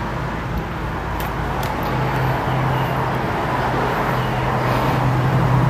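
A steady low mechanical hum, like a vehicle or motor running nearby, growing a little stronger about two seconds in, with a few faint clicks.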